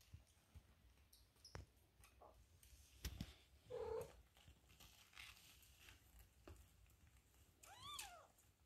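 Newborn Maine Coon kittens at the teat: a short mew about four seconds in and a higher mew that rises and falls near the end, over a faint low purr and a few small rustling clicks.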